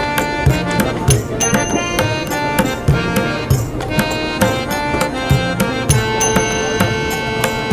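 Background music: Indian-style instrumental with a steady pattern of tabla drum strokes under a melodic line of held notes.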